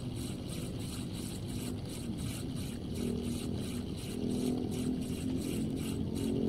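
Relix Cetus Attach 1000 spinning reel being cranked on a steady lure retrieve: a rhythmic whirring tick about three times a second over a low hum, which gets louder in the second half.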